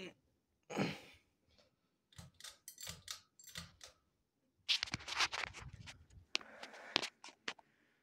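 Bursts of clicking and light rattling from a hand handling a Harbor Breeze ceiling fan's light kit and pull chain, coming in about four groups.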